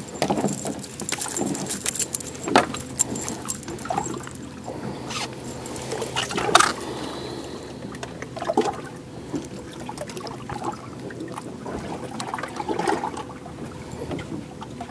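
Water splashing and lapping against the side of a small fishing boat as a fish is hauled up to the hull, with scattered sharp knocks on the boat, the loudest about 2.5 and 6.5 seconds in.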